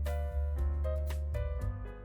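Background music: a melody of pitched notes over a steady bass line, with a few light percussive hits.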